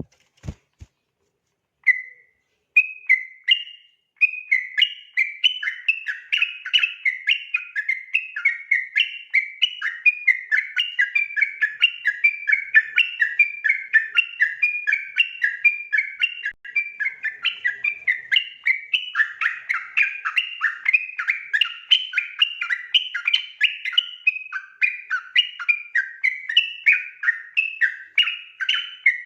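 Yellow-vented bulbul (trucukan) singing its long rolling 'ropel' song: an almost unbroken run of quick, varied whistled notes, several a second, starting about two seconds in after a couple of faint clicks.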